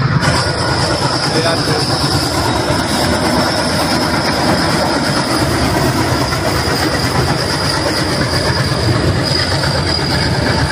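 Goods train rolling across a steel truss railway bridge: a loud, steady rumble of the wagons with a high, steady squeal over it.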